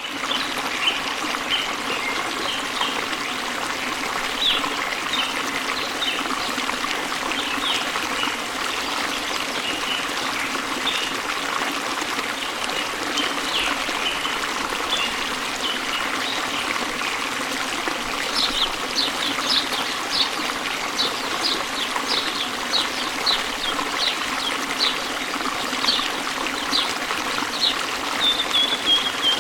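Waterfall water falling and splashing steadily, with small birds chirping over it. The chirps grow more frequent and come in a quick run of short falling notes from a little past halfway.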